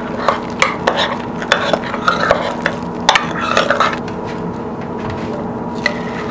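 Silicone spatula stirring thick donut batter in a ceramic mixing bowl, a run of irregular scrapes and knocks against the bowl that thins out after about four seconds. A steady faint hum runs underneath.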